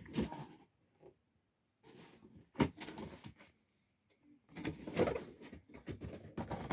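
Handling noises: scattered knocks and scrapes, a sharp click about two and a half seconds in, then a busier run of knocking and rustling over the last two seconds.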